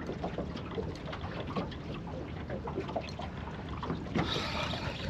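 Water lapping against a small boat's hull, with scattered small knocks and clicks and a brief hiss about four seconds in.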